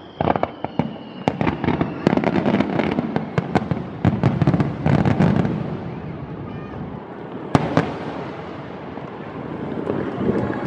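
Fireworks going off: a rapid run of sharp bangs and crackles over a low rumble for the first six seconds or so, then thinning out, with one lone sharp crack about seven and a half seconds in.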